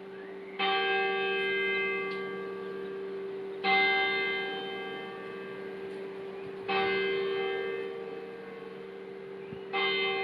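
Church tower bell striking the hour, four strokes about three seconds apart. Each stroke rings on and fades over a steady low hum from the bells.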